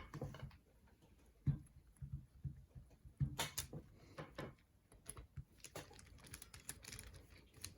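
Light, scattered clicks and taps of a screwdriver and small metal parts as the top carrier screw is backed out of a Henry Classic lever-action .22 rifle.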